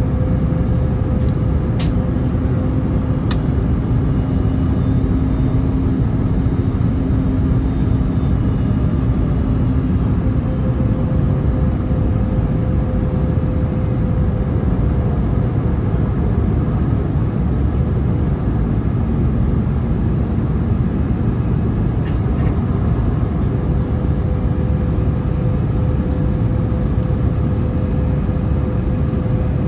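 Airbus A321neo airliner on approach, heard at a distance as a steady low rumble with a faint steady hum, mixed with wind buffeting the microphone.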